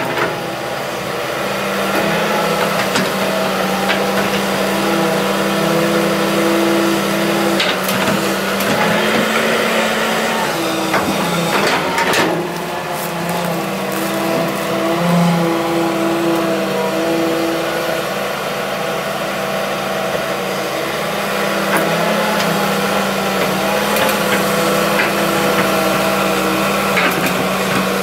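Hitachi EX200-3 hydraulic excavator working: its diesel engine runs steadily under load, the pitch shifting up and down as the hydraulics work, with a few sharp knocks.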